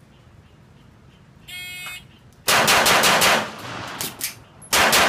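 A shot timer gives a short electronic start beep. About half a second later a Wilson Combat Brigadier Tactical pistol fires a fast string of shots. After a break of just over a second, rapid fire starts again near the end.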